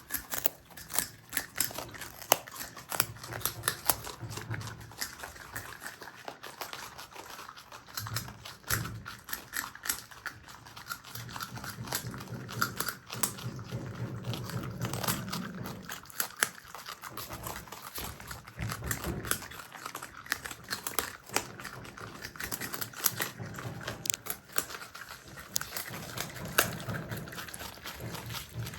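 Marmots chewing close to the microphone: a dense run of rapid, crisp crunching clicks, with softer low rumbling chew sounds underneath at times.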